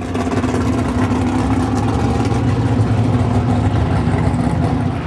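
Ford 2.3-litre turbocharged four-cylinder engine with a Holset HX35 turbo and an Esslinger roller cam, idling steadily at an even pitch.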